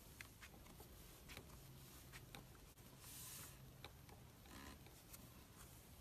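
Near silence, with faint scattered small clicks and a brief soft hiss about three seconds in.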